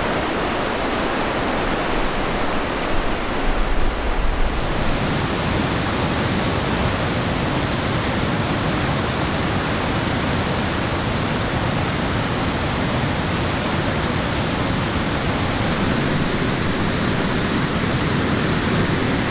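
Steady rushing of whitewater pouring over a river waterfall and through rapids. The rush gets fuller about four to five seconds in.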